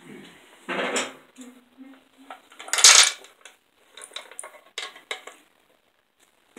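Loose metal parts and tools clinking and clattering as they are handled and set down. The loudest clatter comes about three seconds in, with a short ringing tone before it and a few lighter clicks after.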